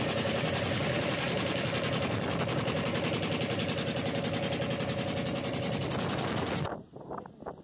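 Wooden river boat's engine running close by with a rapid, even chugging. It cuts off abruptly near the end, leaving a much quieter background.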